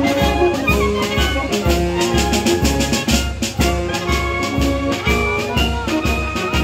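Band music with brass instruments over a steady drum beat.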